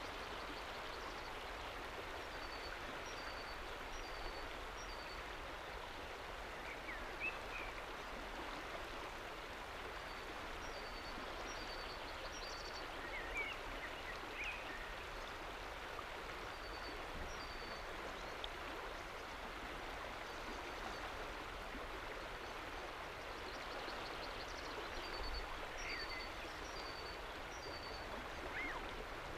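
A river flowing steadily past and over a rock shelf at the water's edge, a constant even rush of water. Small birds chirp over it in several short runs of high notes.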